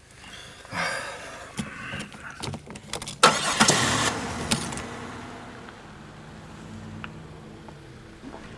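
Car engine being started: a few clicks and a rattling burst, then the engine catches loudly a little over three seconds in and settles into a steady idle.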